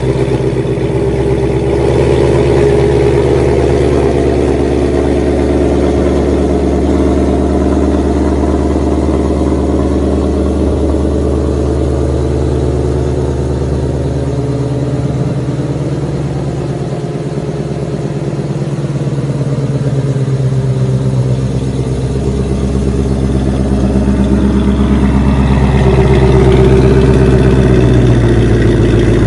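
Late-model Ford Mustang's engine running at idle through its quad-tip exhaust, just after start-up. The note rises in pitch and gets a little louder near the end.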